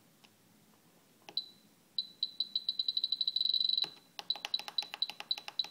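Spektrum DX7 radio transmitter beeping as the gear channel's travel value is stepped. First one beep, then a run of high beeps that speeds up into an almost continuous tone and stops short. Then comes a string of separate beeps, each with a click, about three a second.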